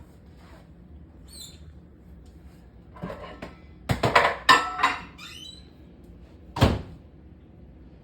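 Kitchen door and cupboard handling: a squeaky door opening with a cluster of clunks and scrapes about three to five seconds in, then a single hard thunk just before the end.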